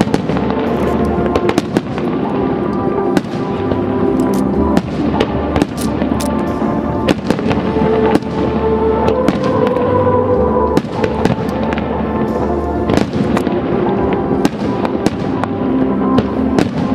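Fireworks bursting and crackling many times over a steady bed of music.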